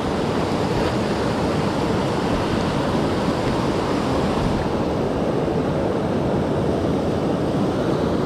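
River water rushing steadily over a fast current, a dense, even roar.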